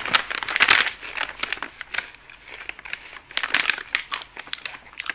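Rustling, crinkling handling noise close to the microphone, with many irregular small clicks and scrapes as things are moved about and handled.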